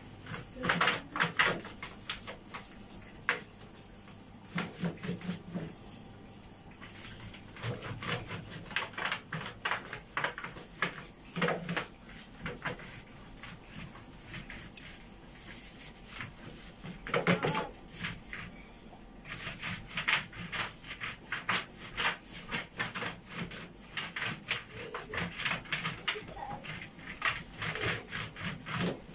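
Kitchen cleaning at a washbasin: a sponge wiping the tiled and plastic-panelled wall, with irregular light knocks and clatter of small items being moved.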